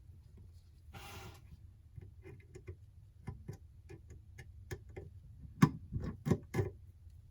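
Small metal repair tools clicking and tapping on an iPhone's parts during a screen replacement: a run of light, irregular ticks that turns into a cluster of sharper, louder clicks near the end, with a short rush of noise about a second in.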